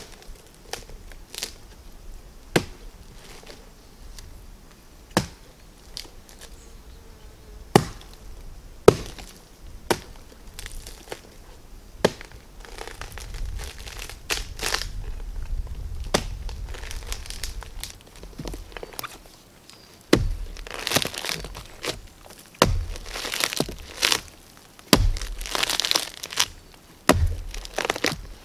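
Rotten wood of a decayed fallen log being broken apart. Scattered sharp snaps and cracks come first, then from about two-thirds of the way in, denser crumbling and tearing with dull thumps.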